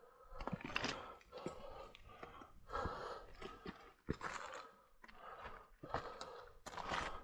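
A hiker scrambling up a steep rocky path: heavy breaths about once a second, with the scuffs and knocks of boots on rock and grit.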